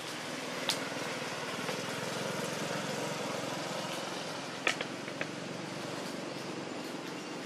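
Steady motor hum, like a vehicle engine running, with a few short sharp clicks, the loudest a little past halfway.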